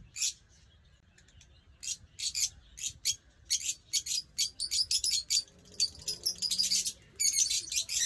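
Small cage birds chirping: short, high chirps, sparse at first and coming thick and fast from about halfway through.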